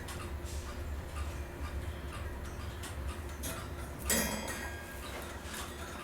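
Small metal clock parts being handled and fitted: light clicks and ticks, with a sharper, ringing metallic clink about four seconds in, over a low steady hum.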